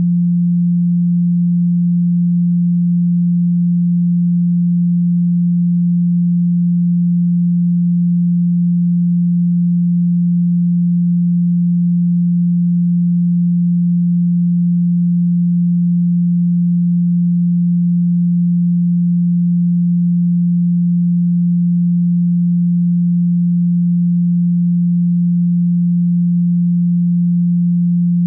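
A steady pure tone at 174 Hz, the Solfeggio frequency, held as one unchanging low hum with no other sound.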